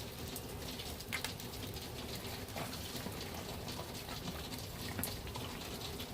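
Steady rain pattering on surfaces, with scattered sharp drips.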